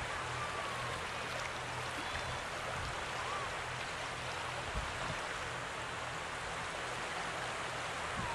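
Steady rush of wind and water, with the low drone of a small lobster boat's engine underneath.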